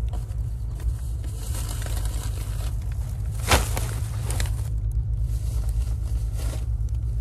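Plastic grocery bags rustling and crinkling as they are loaded into a car's cargo area, with a sharp thump about halfway through as a bag is set down on the cargo mat. A steady low rumble lies underneath.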